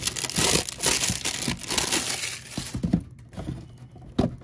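Hard clear plastic Funko Pop protector case being handled: plastic crackling and scraping, dying down after about three seconds, then one sharp click near the end.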